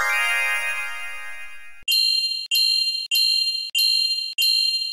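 Edited-in chime sound effect: a rising twinkly glissando that holds for about two seconds and stops. Then a bright ding sounds five times, evenly about 0.6 s apart.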